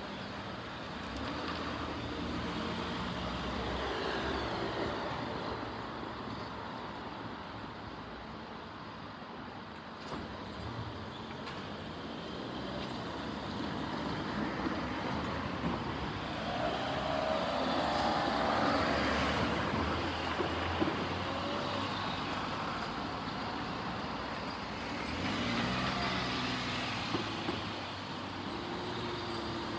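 Road traffic: motor vehicles running and passing at low speed, with an engine rising in pitch as it accelerates a little past the middle and again near the end.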